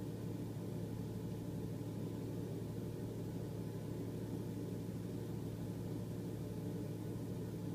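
Steady low hum inside a car's cabin, with no change or break.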